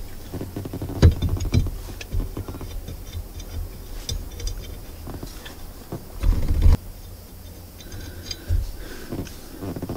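Scattered small clicks and light knocks of hand tools and metal parts being handled while working on a car's steering-wheel hub, with a heavier knock about six seconds in.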